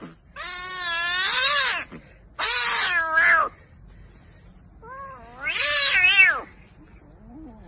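Kitten meowing: three long, loud meows that waver in pitch, then a faint short one near the end.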